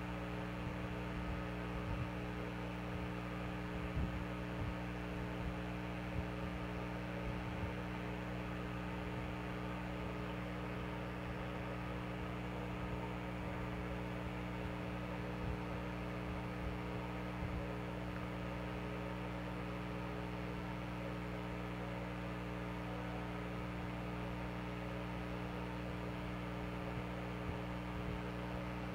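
A steady low hum made of several constant tones, with a few faint ticks here and there.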